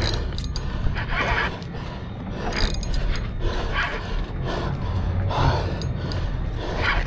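Spinning reel being cranked in repeated short bursts, its gears whirring under the load of a large amberjack on the line, over a low steady rumble.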